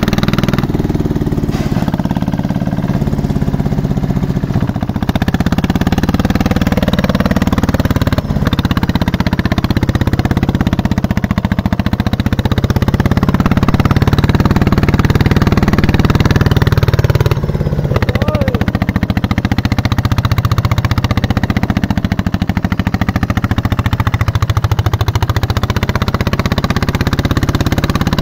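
Single-cylinder diesel engine of a two-wheel walking tractor running steadily with a rapid chug, hauling a loaded cart through deep mud.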